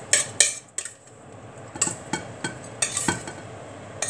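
Utensil scraping and knocking against a stainless steel pot as a moist minced-meat salad is emptied onto a plate, in a string of short scrapes and clinks.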